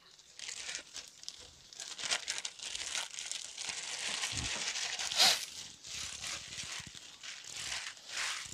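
Thin plastic fish bag crinkling and rustling as it is handled at the tank to let the fish out, with a louder crackle about five seconds in.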